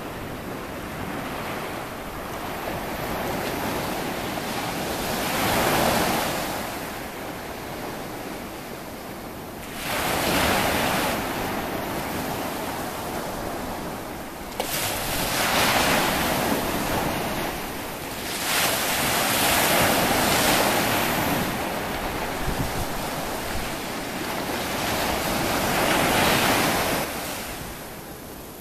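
Ocean surf breaking on a sandy beach. Each wave swells up and washes in roughly every four to six seconds.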